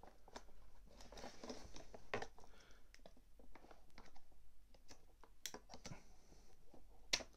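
Scissors snipping the thin clear plastic ties that fasten an action figure into its box, amid light clicks and rustling from handling the plastic figure and packaging. Scattered small clicks, with a few sharper ones in the second half.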